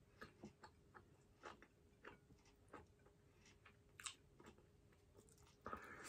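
Quiet mouth sounds of a person chewing rice and baked salmon, a scatter of soft clicks. A louder, noisier burst comes near the end, as a handful of rice is pushed into the mouth by hand.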